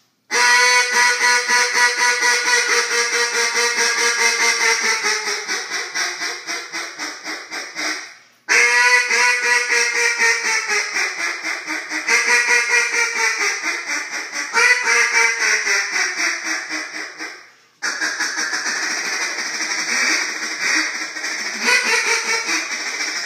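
Echo Timber single-reed mallard duck call blown in long runs of rapid quacks, about three a second, each run falling in pitch toward its end. The runs break off twice with short gaps, and the last run is faster and a little softer.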